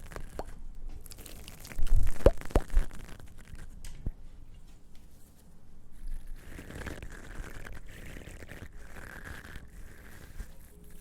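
Close-miked ASMR trigger sounds: crunching and crinkling rubbed against the microphone, with a cluster of sharp knocks about two seconds in and softer scratching and brushing afterwards.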